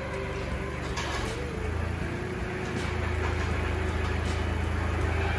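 Kubota L3240 tractor's diesel engine running steadily, a low even rumble, while the grapple is worked through the newly installed third-function hydraulic valve.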